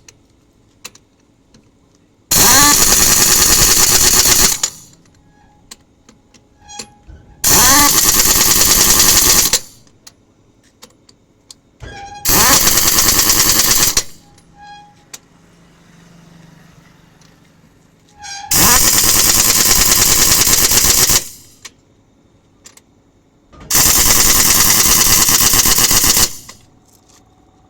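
Pneumatic impact wrench hammering on a truck wheel's nuts in five bursts of about two to three seconds each, with short pauses and small clicks between them as the wrench moves from nut to nut.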